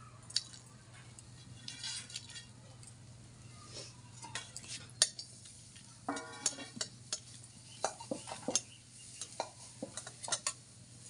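Metal spatula scraping and clinking in a dry aluminium kadai as whole dried red chillies are stirred in it, with a brief ringing squeal of metal on metal about six seconds in. A steady low hum runs underneath.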